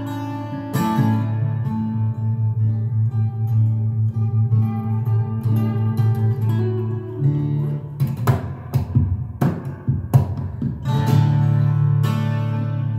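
Solo steel-string acoustic guitar playing sustained bass notes under a melody. A run of sharp percussive strikes comes between about eight and ten seconds in.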